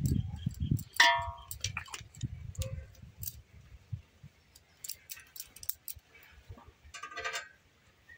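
Light clinks and taps of a metal spoon against metal cookware, with a short ringing clink about a second in and another near the end, over low handling bumps.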